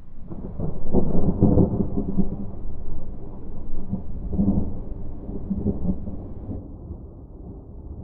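Wood campfire burning: an uneven low rumble of flames that swells about a second in and slowly dies down.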